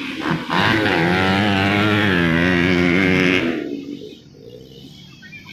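Dirt-bike engines revving hard as they race past, rising and falling in pitch, then fading quickly about three and a half seconds in.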